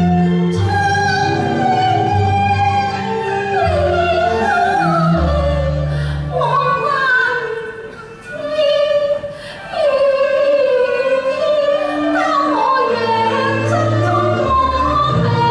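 Cantonese opera singing: a woman's voice sings a sliding, ornamented melody over instrumental accompaniment with sustained low notes. The voice drops away briefly a little past halfway, then resumes.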